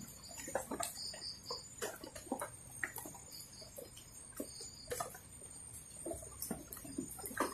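Faint night ambience by the water: a thin, steady, high-pitched insect whine, with a chirp of three quick pips repeating about a second in and again a few seconds later. Small scattered clicks and ticks run throughout.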